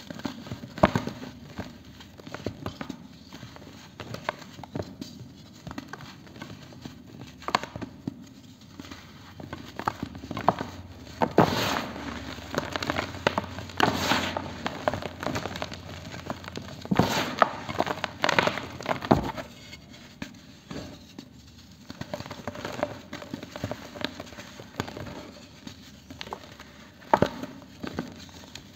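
Dried pure cement pieces crunching and crumbling as hands snap and squeeze them. The result is a run of sharp, irregular crackles, busiest and loudest about halfway through.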